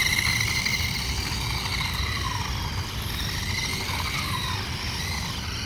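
RC car's motor whining as it drives off, its pitch rising and falling with the throttle, over a steady low rumble.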